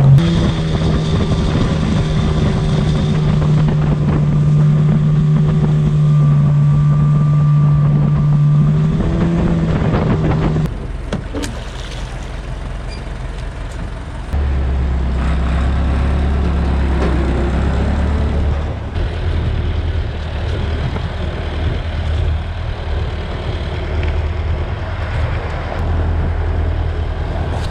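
Small boat's outboard motor running at a steady pitch, with small changes in speed, then stopping about ten seconds in. After a few seconds of quieter noise, a deeper, steady engine hum runs on to the end.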